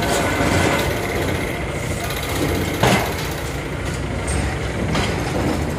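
Heavy demolition excavators at work: diesel engines running steadily under a rumble of crunching and clattering concrete and debris as their attachments break the building. A sharper crack stands out about three seconds in.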